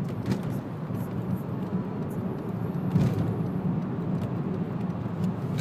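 Steady low rumble of road and engine noise inside a moving car's cabin, with a brief knock about three seconds in.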